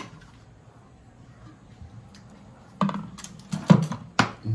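Kitchen clatter of cookware and utensils: a few sharp knocks and clinks come close together after nearly three seconds of quiet.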